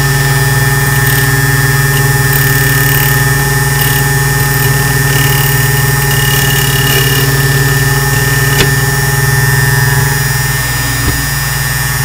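Electric motor of a small Taylor key duplicating machine running steadily while its cutter wheel cuts a brass key blank, with a faint squeal from the cut. The motor is underpowered and bogs down a bit when cutting, so the key has to be fed slowly.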